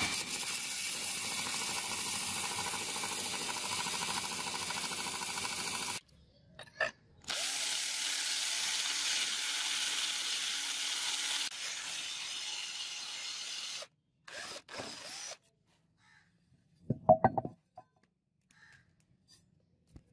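Belt grinder running with a steel cleaver blade held against its abrasive belt, a steady grinding that stops about six seconds in. About a second later an electric drill with a twist bit bores through the steel blade, running steadily for several seconds. A couple of short bursts and a cluster of sharp knocks come near the end.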